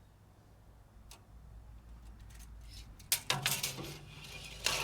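Metal being handled: a faint click, then a cluster of sharp metallic clinks and clanks over the last two seconds.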